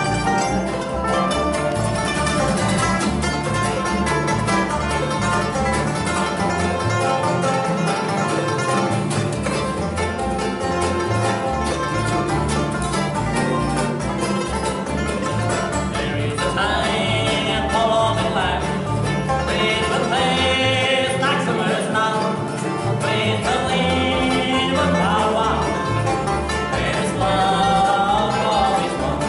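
Bluegrass band playing live on acoustic instruments: five-string banjo, acoustic guitars, fiddle and upright bass. Singing comes in about halfway through, in phrases over the instruments.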